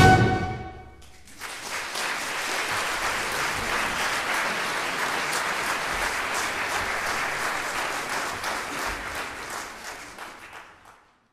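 A wind band's final chord rings out and dies away, then a concert audience applauds steadily for about nine seconds, fading out near the end.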